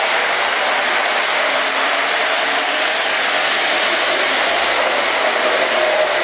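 O-gauge model trains running on a layout: a steady whir of electric motors and metal wheels on metal rail, with a faint steady hum.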